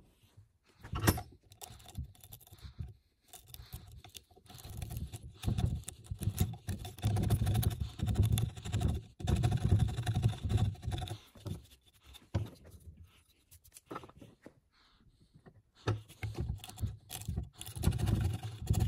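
Hand chisel paring wood across the bottom of a cross halving joint trench: a run of irregular scraping, slicing strokes. The strokes are sparse at first, come thick from a few seconds in, pause briefly near the middle of the last third, then resume.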